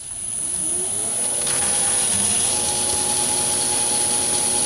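Myford ML7 lathe starting up: the motor and drive run up to speed, rising in pitch over about the first second and a half, then spin the chuck steadily at about 860 rpm, with a constant high whine over the running sound.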